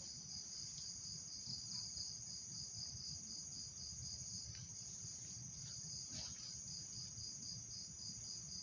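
Crickets chirping in a steady, high, pulsing chorus, about three pulses a second, over a low steady rumble.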